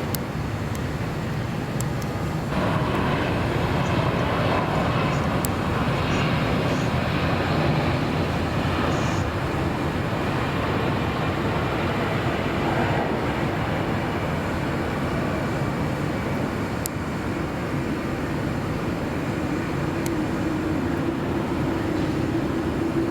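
Jet airliner passing close by, a steady rushing engine noise that swells about two and a half seconds in, with a droning hum growing louder near the end.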